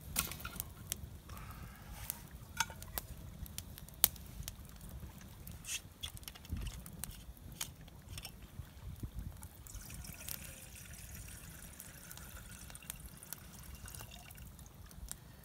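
A wood campfire crackling with scattered sharp pops, the loudest about four seconds in. In the second half, water is poured from a bottle into a cooking pot in a steady trickle.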